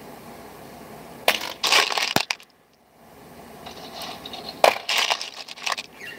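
Small loose metal parts clinking and rattling in two short bursts of clatter, about a second in and again near five seconds, over a steady background hum.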